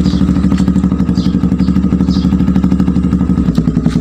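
Motorcycle engine idling through a Daeng aftermarket exhaust fitted with the stock elbow pipe: a steady, rapid putter that eases slightly near the end.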